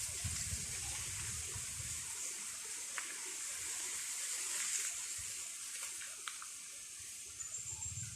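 Wind rushing steadily through foliage, with gusts rumbling on the microphone in the first couple of seconds and a few faint ticks.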